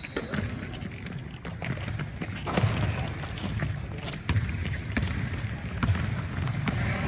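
Basketball game on a hardwood gym floor: the ball bouncing, with sneakers squeaking and players' footfalls on the court, in a large echoing hall. The squeaks come in short high bursts near the start and again near the end.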